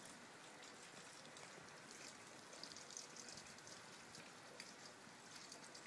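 Faint steady rain: an even hiss with light, scattered patter of drops.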